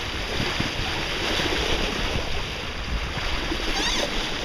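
Steady wind noise on the microphone with waves slapping and rushing around a small sailboat under way on choppy water.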